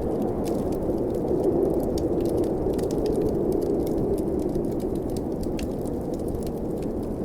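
Steady low blizzard wind with a crackling fireplace over it: many small, sharp wood pops at irregular intervals.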